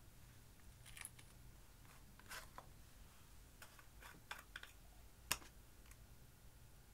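Faint scattered clicks and taps from a small plastic eyeshadow compact being handled. A sharper click comes a little past five seconds in, as the lid comes off the pan.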